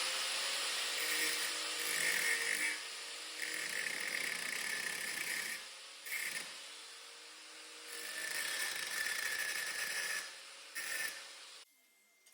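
Angle grinder running against steel, working in passes: it eases off for a couple of seconds about halfway through, runs again, and cuts off suddenly near the end.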